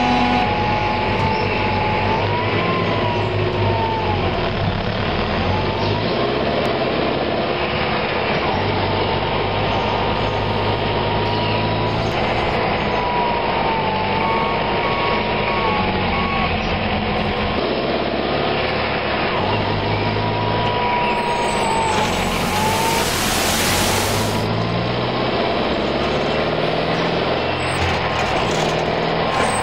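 Cartoon truck engine sound effect running steadily, with a burst of hiss lasting about two seconds roughly two-thirds of the way through.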